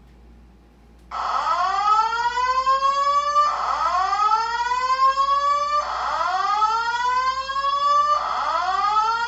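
Fire alarm sounding during a test: a rising sweep tone that starts about a second in and repeats about every two and a half seconds.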